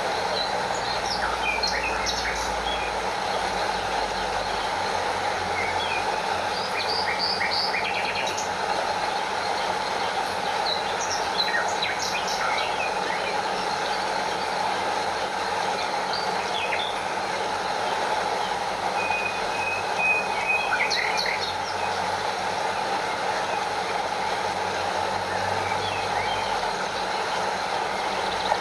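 Steady rushing of a stream and small waterfall, with short bird chirps scattered throughout.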